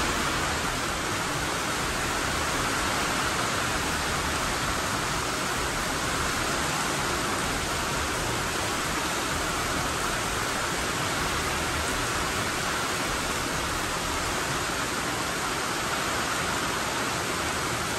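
Steady rain falling on the shop roof: an even, unbroken hiss.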